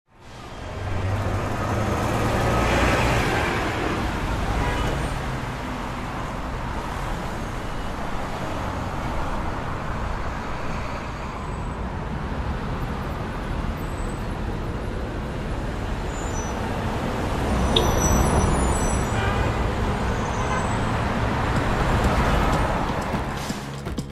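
Motorcycles riding on a wet road: engines running under a steady hiss of road noise, swelling louder a few seconds in and again past the middle.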